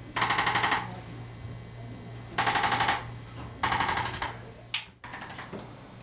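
Arthrostim electric chiropractic adjusting instrument firing against the patient's back in three short bursts of rapid taps, each about half a second long, as it delivers an instrument adjustment to the spine.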